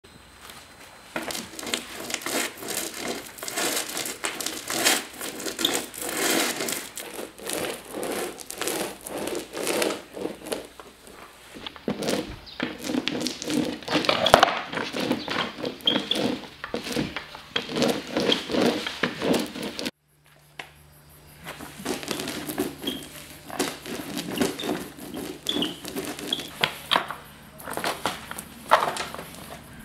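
Paint roller worked back and forth through wet paint in repeated strokes: a dense, irregular crackle that rises and falls with each pass. It stops abruptly about two-thirds through and starts again a moment later.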